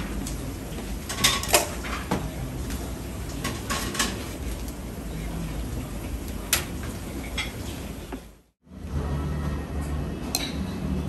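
Dishes and cutlery clinking, a scatter of sharp clicks over a steady background hum. The sound drops out briefly about eight and a half seconds in, then a steadier low hum returns with a few faint clinks.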